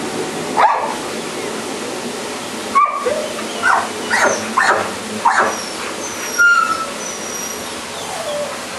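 Young kittens mewing: about seven short cries that drop in pitch, several in quick succession in the middle.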